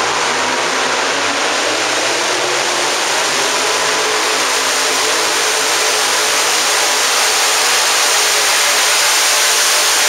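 Super modified four-wheel-drive pulling truck's engine running flat out and loud as the truck drags the weight-transfer sled down the track, steady throughout.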